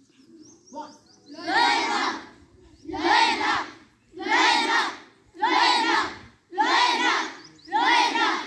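A large group of karate students shouting in unison, six loud shouts about a second apart, each shout given together with their moves.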